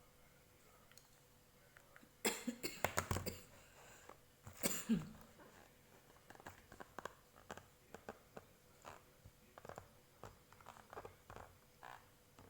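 A person coughing in two bouts, the first a rapid run of coughs about two seconds in, the second a single cough ending in a short voiced tail. Light clicks and taps follow, typical of handling a cough syrup box.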